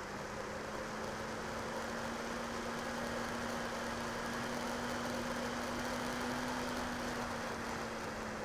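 Stryker RC flying wing in flight, heard from on board: the electric motor and propeller give a steady hum over a rush of wind noise, the hum rising slightly in pitch and level partway through and easing back near the end.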